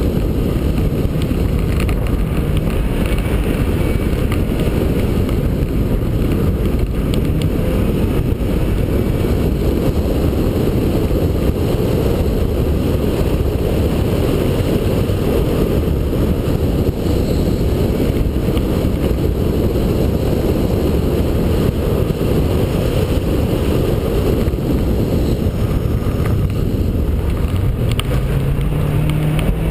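Subaru Impreza rally car driven hard on loose gravel: its flat-four engine runs under load beneath a heavy, steady rumble of tyres and gravel. Near the end the engine note rises as the car accelerates.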